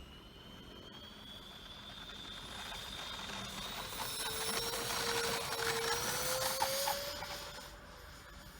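Jet engines of a radio-controlled 1/19-scale Boeing 737 Max 8 model whining, with a high tone slowly rising in pitch. The sound grows louder to a peak about three quarters of the way through, then fades.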